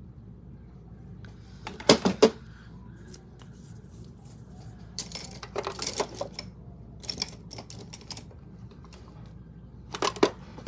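Makeup containers clicking and clattering in several short bunches as someone rummages through them looking for a product.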